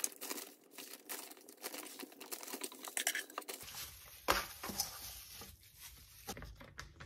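Plastic zip-top bag and disposable plastic gloves crinkling as handfuls of wet marinated sliced beef are scooped from a metal pot into the bag, in irregular crackles.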